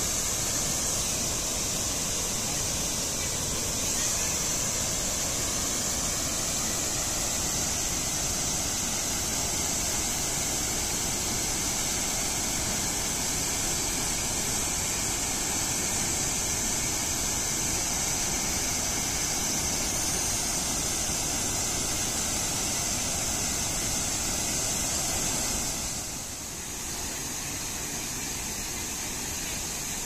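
Large waterfall in full flood, a steady rush of falling water. It drops a little in level about four seconds before the end.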